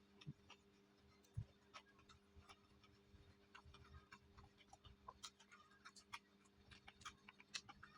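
Close-up mouth sounds of chewing: irregular small wet clicks and crunches, several a second, from a mouthful of rice and crispy fried anchovies. A faint steady hum lies underneath.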